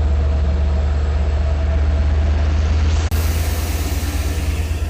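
Long Island Rail Road diesel locomotive running with a loud, steady low rumble as the train stands at the platform, with a brief break in the sound about three seconds in.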